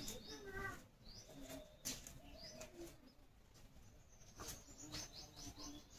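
Faint bird calls: short, quick rising chirps and a few low notes, with several sharp clicks or taps in between.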